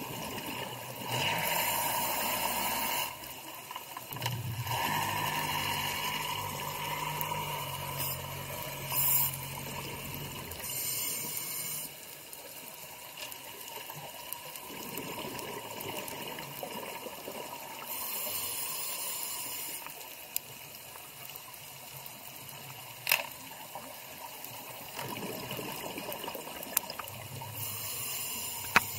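Scuba regulator breathing underwater: hissing inhalations alternating with rushing bursts of exhaled bubbles, one breath every few seconds. A couple of sharp clicks come near the end.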